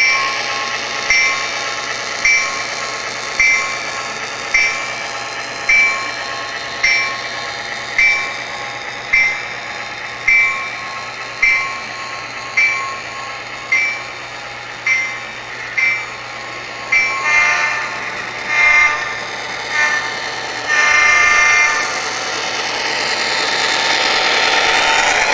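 Model diesel locomotive sound system ringing its bell steadily, about one stroke a second. About two-thirds of the way through it gives a series of short and long horn blasts. Near the end a rushing rolling noise swells up.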